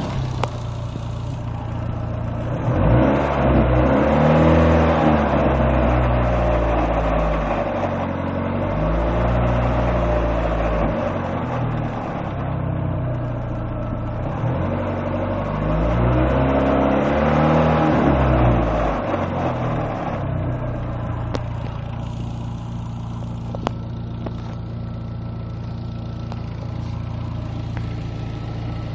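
Second-generation Neon's four-cylinder engine revved up and down several times, then settling to a steady idle about twenty seconds in. The owner hears a strange noise in it that he can't identify.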